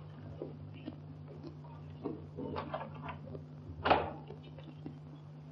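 Scattered soft knocks and clicks, with one louder knock about four seconds in, over the steady low hum and hiss of an old film soundtrack.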